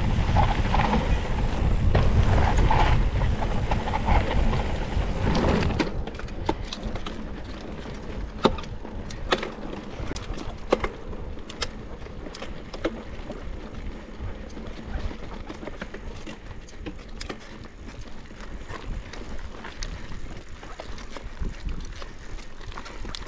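Wind rushing over an onboard camera's microphone on a fast mountain bike descent for about the first six seconds, then a quieter stretch of mountain bike tyres rolling on a dirt trail with frequent clicks and rattles from the bike.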